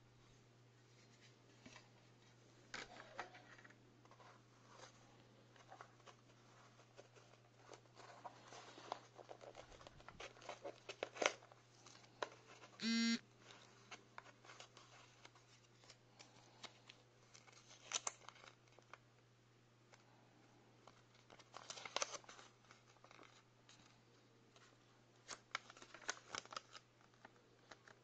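A paper instruction leaflet and card being handled and unfolded from a lighter's collector tin: faint rustling of paper with light taps and clicks, coming in short clusters. A brief squeak comes about halfway through, and a low hum runs underneath.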